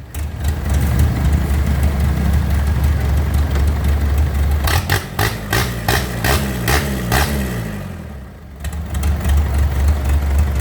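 Mitsubishi 4D31 four-cylinder diesel engine running, with revs rising and falling. A run of sharp clattering knocks comes in the middle, about three a second. The engine note sags about three quarters of the way through, then picks back up.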